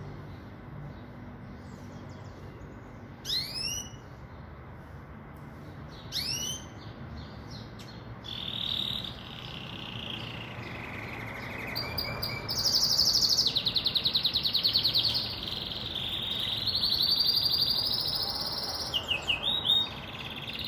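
Pintagol, a red siskin × canary hybrid finch, singing: two short rising call notes about three and six seconds in, then continuous warbling song from about eight seconds on, with fast buzzy trills loudest in the middle.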